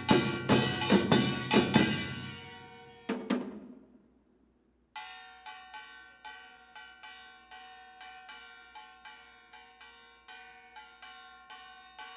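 Metal percussion from Korean traditional percussion music: a fast run of loud, ringing, gong-like strikes, one last strike, a short pause, then a quieter even beat of ringing metal strikes.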